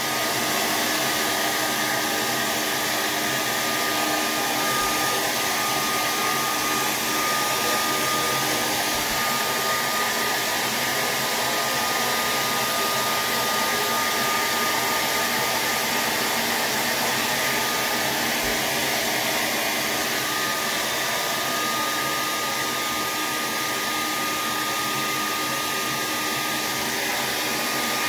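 Handheld hair dryer running steadily, a constant rush of blown air with a thin, steady whine from its motor.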